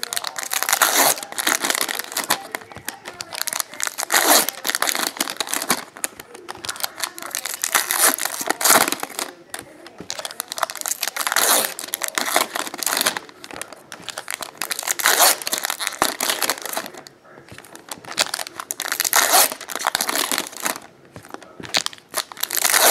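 Foil trading-card pack wrappers torn open and crinkled by hand, in loud bursts every few seconds.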